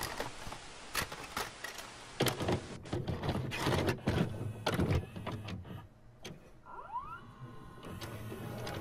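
Videocassette recorder loading and starting a tape: a run of mechanical clunks and clicks with motor whirring between them, and a short rising whine about seven seconds in.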